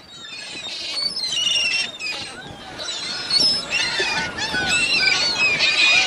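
A flock of gulls calling, many short high cries overlapping.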